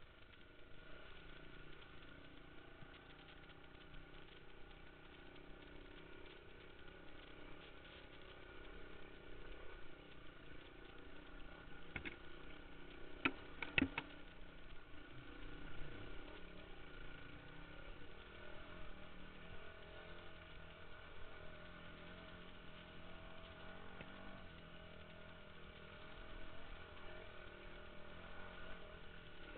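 Trail motorcycle engine running steadily at low revs as the bike rides along a rough, muddy lane. There are a few sharp knocks about halfway through.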